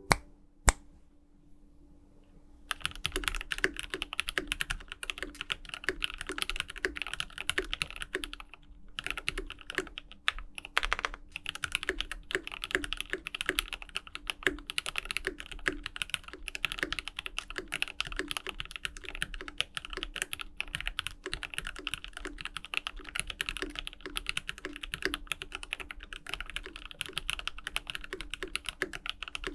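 Continuous fast typing on a GMMK Pro aluminum custom mechanical keyboard fitted with lubed JWK EV-02 linear switches and GMK keycaps; the typing starts about three seconds in.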